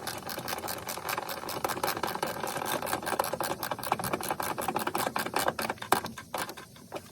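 Fast, even clicking of a socket tool with a 14 mm socket driving in a seatbelt anchor bolt, stopping about six seconds in.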